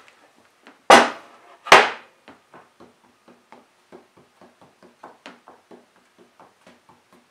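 Two loud knocks of a maple board being lifted off a wooden planer sled and set down on a table saw's cast-iron top, followed by a run of faint light ticks, about four a second.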